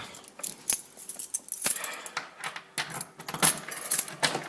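Metal keys and lock hardware jangling and clicking, with repeated sharp ticks and scraping as the door lock is worked.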